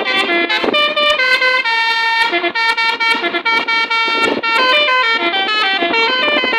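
Basuri telolet musical bus horn playing a tune: a quick run of stepped, bright horn notes with a very short break about two and a half seconds in.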